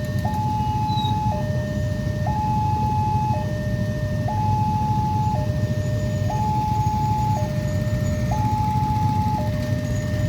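Level crossing warning alarm sounding a two-tone electronic signal, alternating high and low about once a second, over a steady low rumble.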